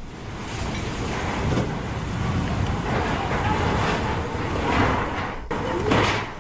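Typhoon wind rushing and buffeting the microphone, with faint voices under it. The noise breaks off abruptly about five and a half seconds in, then surges again briefly.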